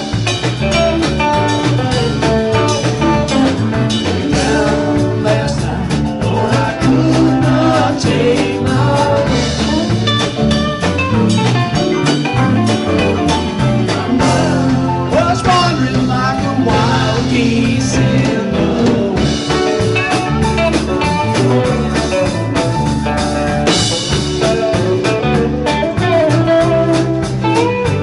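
Live rock band playing a continuous jam: electric guitars and bass guitar over a drum kit keeping a steady beat.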